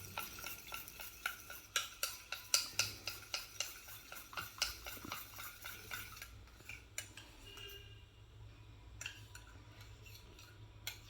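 A spoon clinking against its container while stirring ginger juice and honey together. The clinks ring and come quickly and evenly, about three a second, then thin out to a few scattered taps about six seconds in.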